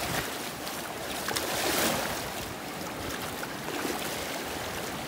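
Shallow ocean surf washing around the legs, a steady rush of water with a wave surging up louder about two seconds in.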